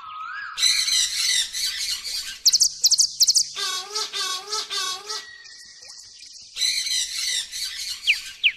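Squawking and chirping bird calls that cut in and out abruptly, with a run of quick rising whistles about two and a half seconds in and sharp falling whistles near the end.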